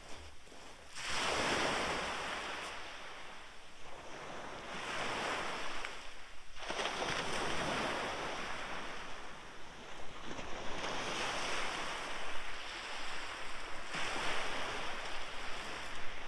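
Small waves breaking and washing up a shingle beach, the surf swelling and fading four times, with wind rumbling on the microphone.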